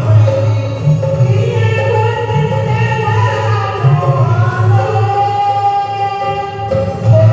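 Hindi devotional bhajan to Hanuman, sung by a woman over drum accompaniment.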